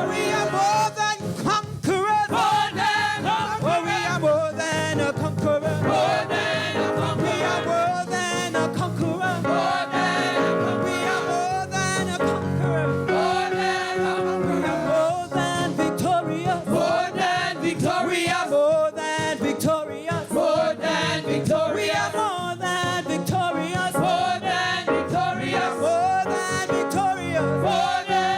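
Live gospel music from a church band: a melodic lead sliding and bending over steady sustained chords, part of a congregational praise song.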